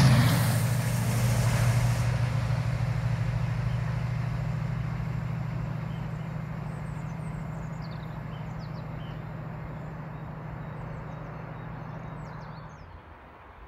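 Diesel train engine throbbing as the train passes close by, then fading steadily as it draws away until it drops out near the end. Small birds chirp faintly over the fading engine in the second half.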